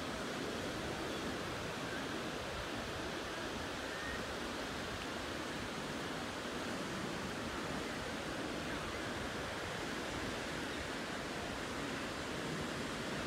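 Small waves breaking and washing up a sandy beach: a steady, even surf noise.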